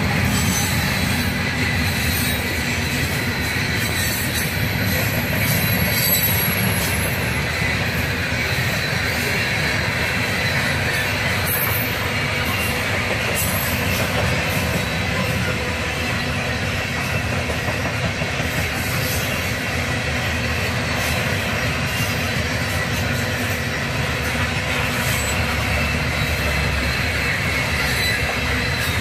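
Coal hopper cars of a CSX freight train rolling past: a steady rumble of steel wheels on rail, with a faint high wheel squeal and occasional sharp clicks from the wheels.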